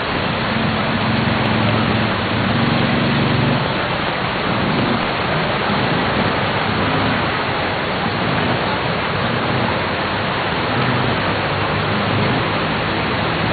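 Steady rushing hiss of rain and fast-flowing floodwater, with a faint low hum in the first few seconds.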